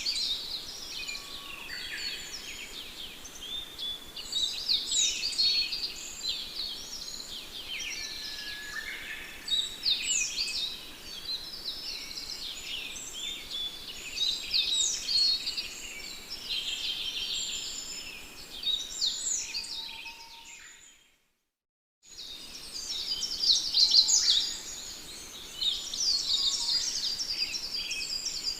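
A flock of sparrows chirping continuously with many overlapping calls. The sound fades out to silence about two-thirds of the way through and picks up again a second or so later.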